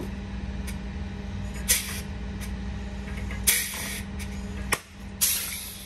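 Pneumatic rivet gun setting blind rivets into a carbon fibre side skirt: three sharp snaps, each followed by a short hiss of exhausting air, about two seconds apart, over a steady low hum.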